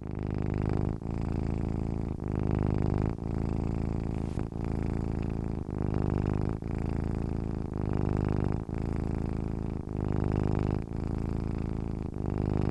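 Domestic cat purring close to the microphone: a steady rumble that swells and eases with each breath, about one breath a second.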